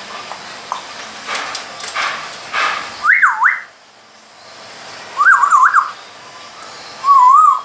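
Grey parrot whistling three times: a swooping up-and-down whistle, a quick warbling one, then a lower wavering one near the end, with some scratchy noises in the first few seconds.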